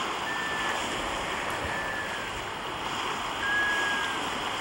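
Black scoters calling from a raft on the water: three drawn-out, mellow whistles, the longest near the end, over a steady wash of water and wind.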